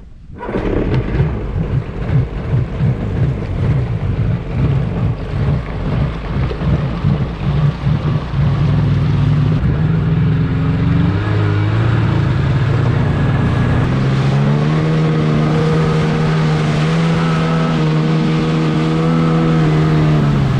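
Two-stroke jet ski engine running hard on the water, surging and uneven for the first several seconds, then settling into a steady high drone that steps up in pitch about two-thirds of the way through.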